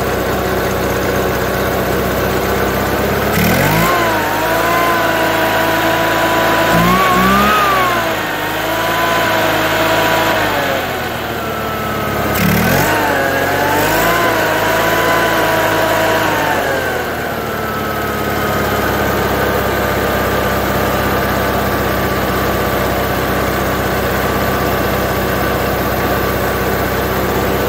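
Onan B-series two-cylinder air-cooled engine running, its speed rising and falling twice, about three seconds in and again about twelve seconds in, as the ignition points are shifted a few degrees to change the timing. After about seventeen seconds it holds a steady speed.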